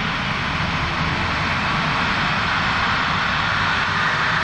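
Rolls-Royce Trent XWB turbofan on an Airbus A350-941 spooling up for take-off: a steady jet rush, with a rising whine coming in near the end as the engine speeds up.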